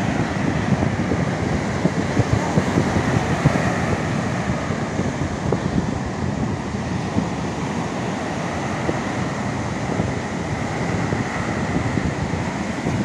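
Wind buffeting the microphone in steady gusts over the continuous wash of breaking ocean surf.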